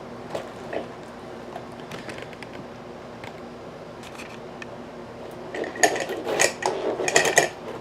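Metal clicking and rattling from a lock cylinder being handled and clamped in a vise: a few light clicks, then a rapid cluster of metallic clicks and rattles for about two seconds near the end.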